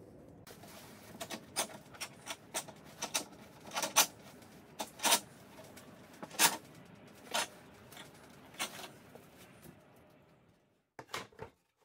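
Irregular sharp knocks and clacks, about one or two a second, from glued wooden strips and a metal panel clamp being handled and tightened. Two quick clicks come near the end.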